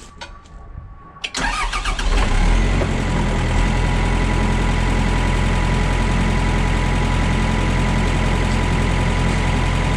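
Komatsu excavator's diesel engine starting about a second in, picking up briefly, then settling into a steady idle.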